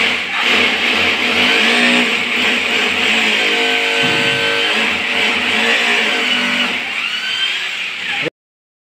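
Hammer drill boring into a tiled wall, a loud steady drilling noise that stops abruptly near the end.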